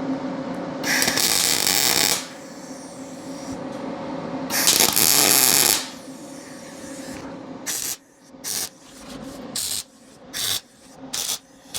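Electric arc welding in stop-start bursts: two hissing, crackling welds of about a second each, then a string of short tack welds in the last few seconds, fixing a 1/4" steel plate to a welding cart frame.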